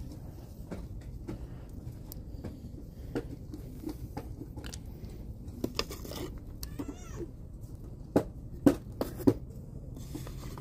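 Store background: a steady low hum with scattered small clicks, a brief high squeaky rising-and-falling sound about seven seconds in, and three sharp knocks near the end.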